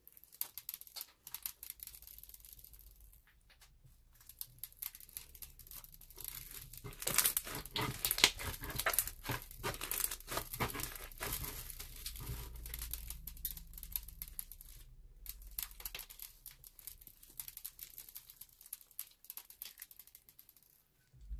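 Hands stretching and kneading a sticky slime with small beads mixed in, making dense, wet crackling and popping. The sound is busiest and loudest in the middle, as the slime is pressed and folded down on the table.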